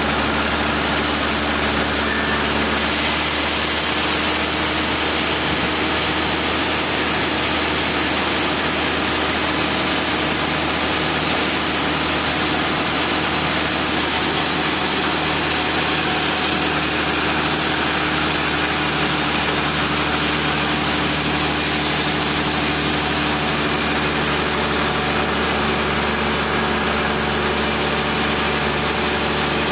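Sawmill machinery running with a steady, unchanging hum.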